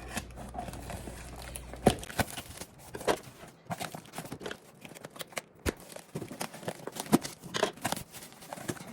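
A shipped package being unboxed by hand: packaging crinkling and tearing, with irregular clicks and knocks as the box and its contents are handled. The sharpest knocks come about two seconds in and again near the middle.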